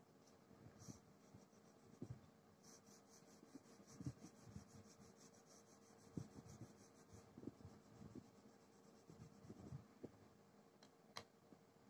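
Faint scratching of colouring strokes on paper, a quick back-and-forth run of them for a few seconds in the middle, then a single sharp click near the end.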